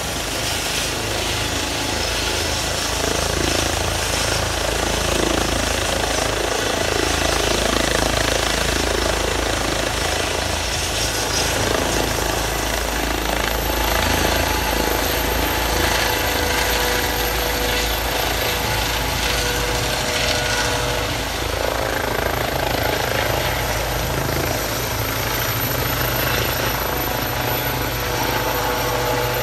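Rescue helicopter's rotor and turbine running steadily at high power, lifting off from the ground and hovering low in the second half.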